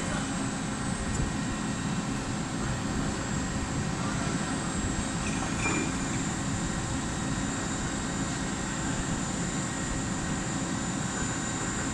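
CNC lathe running with a steady machine drone and a thin, high, steady whine.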